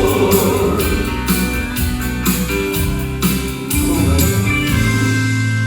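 Gospel vocal quartet holding the last word, "Lord", of the chorus, then an instrumental break with guitar over a steady beat of about two a second.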